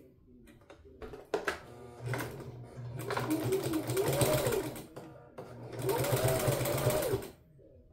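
Electric sewing machine stitching in two runs with a short pause between, its motor pitch rising and falling as each run speeds up and slows down. A sharp click comes just before the first run.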